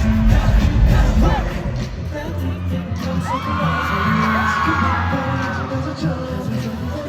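Live K-pop band music with singing, played loud over a concert PA system. The heavy bass drops out about two seconds in, and long high screams from the audience rise over the music a second later.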